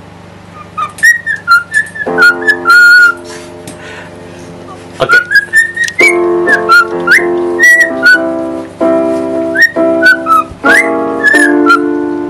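Background music: a whistled melody with sliding notes over piano chords.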